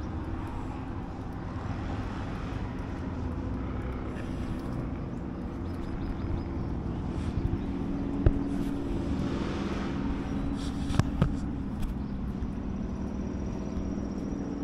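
Steady road-traffic noise with a low engine hum, broken by a sharp click about eight seconds in and two more about eleven seconds in.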